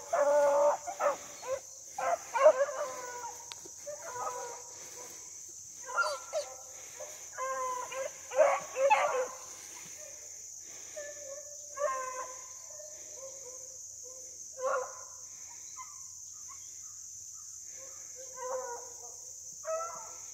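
Dogs barking and baying in repeated short calls, thick and loud in the first half and sparser after that, over a steady high drone of insects.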